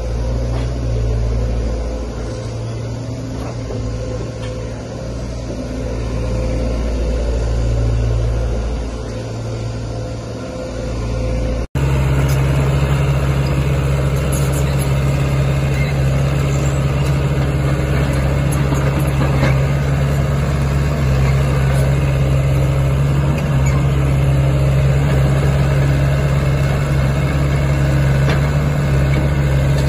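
Diesel engines of Sany excavators running. First a small Sany excavator's engine rises and falls as the machine works. Then, after an abrupt cut about a third of the way in, a Sany SY75C's diesel engine idles steadily.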